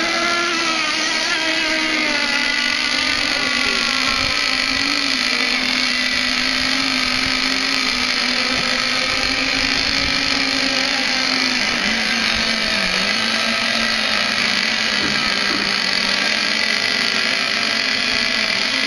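Several radio-controlled model racing boats running at speed, their motors making a steady, high whine of several overlapping pitches that waver up and down.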